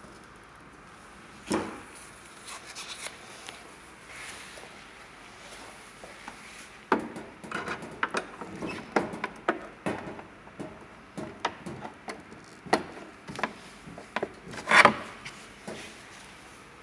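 Handling noise of pliers and gloved hands working inside a plastic appliance housing: a sharp knock shortly after the start, then a busy run of short clicks, knocks and rubs, with a louder, longer scrape near the end.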